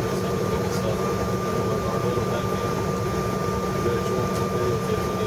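Airliner cabin noise while taxiing: a steady hum of the engines and cabin air conditioning, with a thin, steady high whine.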